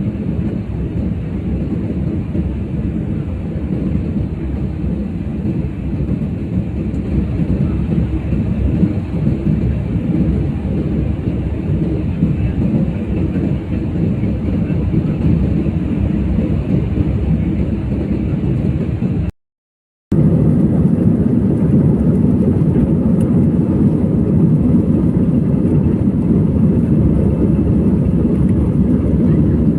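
Airliner cabin noise in flight: a loud, steady low roar of engines and airflow. It cuts out abruptly for about a second about two-thirds of the way in, then resumes.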